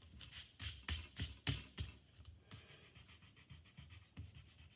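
Vinyl eraser scrubbing back and forth on watercolour paper, a quick run of about seven strokes at roughly four a second, then lighter rubbing. It is taking out pencil lines and lifting a little dried pigment.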